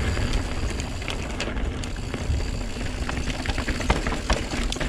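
Santa Cruz Megatower mountain bike rolling fast down a packed-dirt singletrack: a steady low rumble of tyres and wind buffeting the handlebar-mounted camera's microphone, with many small clicks and rattles from gravel and the bike.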